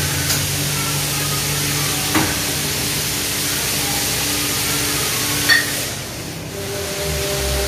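Tomato-onion thokku sautéing in a steel frying pan, a steady sizzle with a low hum beneath it. A few short clicks come from containers being handled, the sharpest about five and a half seconds in.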